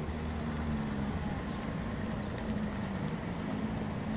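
Street ambience: a vehicle engine running with a steady low hum, and footsteps on cobblestones.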